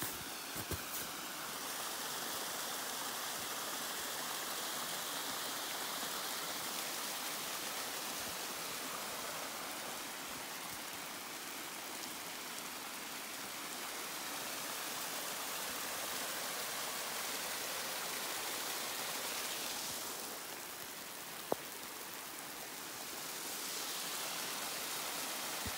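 Mountain waterfall rushing: a steady hiss of falling water that eases slightly about twenty seconds in, with a single sharp click a little after.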